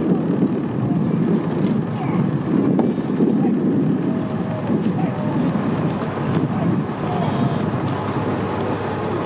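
Wind buffeting the microphone in a steady, fluctuating rumble, with faint distant shouting from the rowing crews and onlookers.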